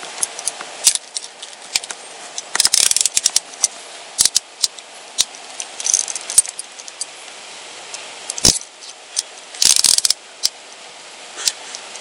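Metal handcuffs clicking and rattling as they are ratcheted closed on a person's wrists behind her back: quick runs of ratchet clicks with scattered single clicks, and one sharper knock about two-thirds of the way through.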